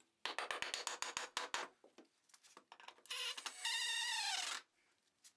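A quick run of light wooden knocks and clicks as a 2x4 header is set in place under the framing cleats. Then a cordless drill drives a screw into it for about a second and a half, its motor whine falling in pitch before it stops.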